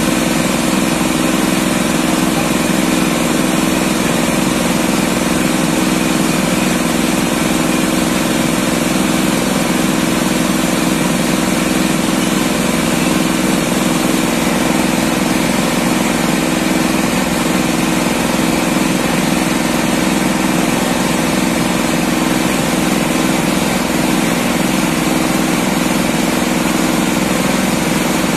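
Electric heat gun running steadily, its fan motor humming and blowing hot air into a motorcycle's front fork tube to heat it so the fork oil seal can be pulled out.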